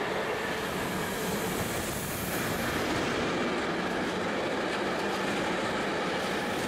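Container freight train hauled by an electric locomotive passing close by at speed: a steady rumble of wagon wheels on the rails.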